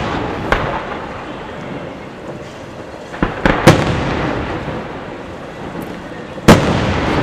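Large aerial firework shells bursting: a lighter bang just after the start, a pair of bangs about three and a half seconds in, and another loud bang near the end, each followed by a long rumbling echo.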